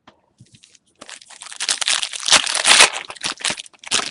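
A trading-card pack wrapper being torn open and crinkled: a dense crackling rustle starts about a second in, with a shorter burst near the end.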